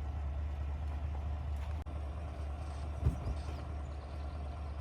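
Boat motor running steadily, with a single short knock about three seconds in.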